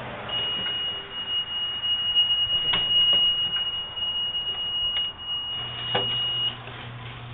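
Golf cart's reverse warning buzzer giving one steady high-pitched beep for about six seconds as the cart backs out, with a few knocks from the cart over bumps. The beep stops near the end, leaving a low steady hum.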